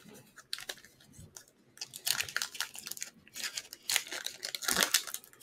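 Foil trading card pack wrapper crinkling and being torn open by hand: a few scattered crackles, then a dense run of crackling from about two seconds in.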